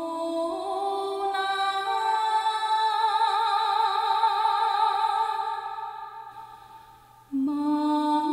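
A slow song melody sung in long held notes that step upward. One long note wavers with vibrato, then fades away about seven seconds in, and a new phrase starts just before the end.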